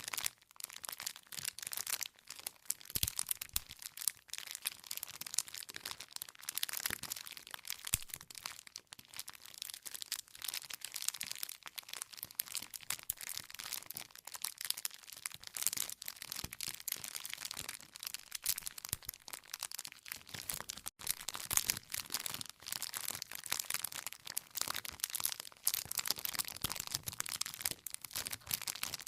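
Wood fire crackling: a dense, unbroken run of sharp crackles and pops from burning firewood.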